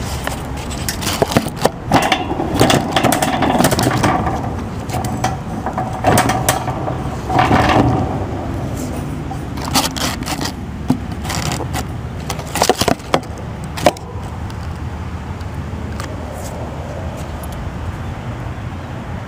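Metal lock parts clicking, knocking and scraping as a double-cylinder deadbolt and its trim are fitted back into a gate. The clicks come thick through roughly the first fourteen seconds, then give way to a steady low hum.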